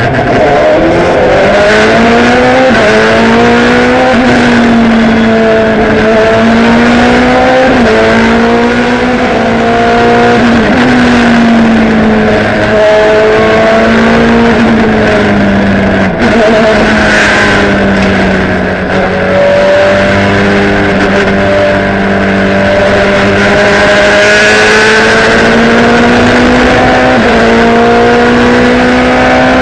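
Ferrari F430 GT2 race car's V8 engine heard from inside the cockpit at racing speed, its pitch climbing and stepping back down with gear changes several times, then holding fairly steady through the middle stretch before climbing again near the end.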